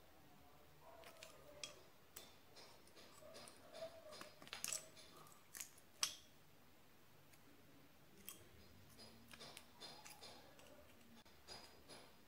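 Faint, scattered metallic clicks and scrapes as a steel threaded rod, tie wire and a stand-mixer beater are handled and fitted together, with a sharper click about six seconds in.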